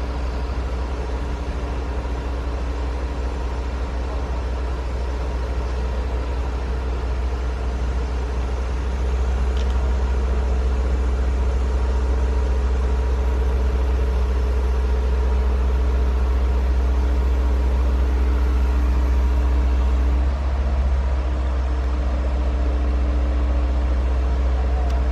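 Heavy diesel engine of a large mobile crane running steadily, with a deep rumble and a steady hum over it; it gets louder about nine seconds in and dips briefly near the end.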